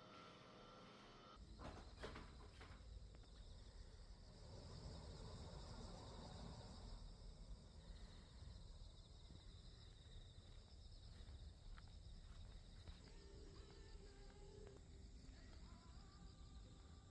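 Faint, steady chirring of insects such as crickets, over a low rumble, with a couple of clicks about two seconds in.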